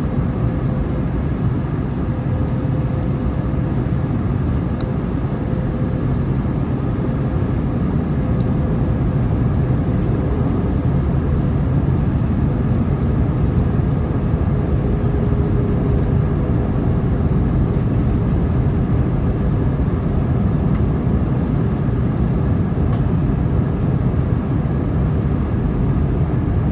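Airbus A321neo jet airliner on approach, a steady low rumble with a faint whine that dips slightly about halfway through, mixed with wind noise on the microphone.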